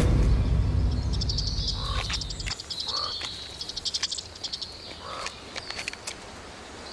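Animal chirping in forest ambience: rapid high trills and short lower chirps repeating about once a second. A low hum under the first couple of seconds fades out.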